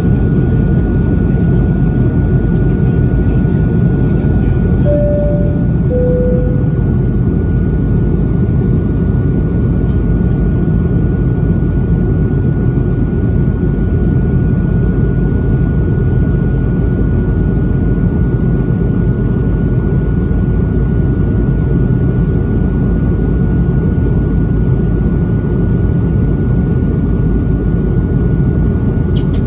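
Steady cabin noise of an airBaltic Airbus A220 climbing after takeoff: a deep rumble of engines and rushing air, with a thin steady whine above it. About five seconds in, a two-note falling chime sounds.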